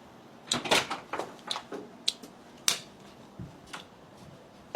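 A run of short, sharp, irregular clicks and taps, about a dozen over some three seconds.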